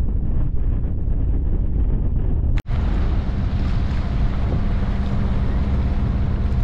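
Wind buffeting the microphone on a sailboat under way, with the steady low hum of the boat's engine as it motor-sails. A brief dropout comes about two and a half seconds in, after which the wind rush turns hissier.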